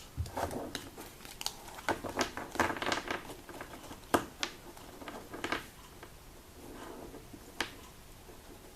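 Trading cards being handled and set down on a table. Sharp taps and rustles, busiest around two to three seconds in, then single clicks spaced further apart.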